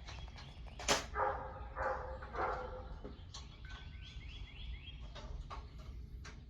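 A dog barking and yipping a few times, with a sharp knock about a second in, over a steady low hum.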